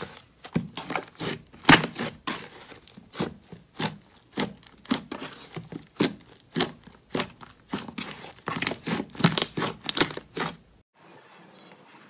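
Fingers pressing into and pulling apart a thick orange slime: a run of short, sticky pops and snaps, about two a second, that stops near the end, leaving only a faint hiss.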